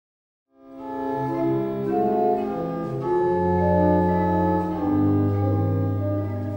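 Organ music: slow, sustained chords over a deep bass line, fading in after about half a second of silence.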